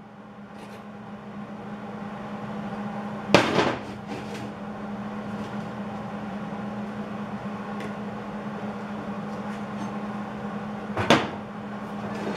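A steady low hum, with two sharp clanks of steel on steel, about three seconds in and again near the end, as the angle-iron V-block and tools are handled on the steel welding bench.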